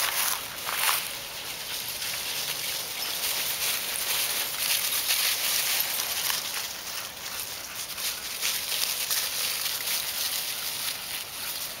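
Dry fallen leaves crunching and rustling under running dogs' paws: an irregular crackling hiss.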